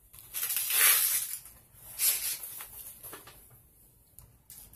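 Watercolor pencil scribbling on paper: a long scratchy stretch of coloring, then a shorter one about two seconds in.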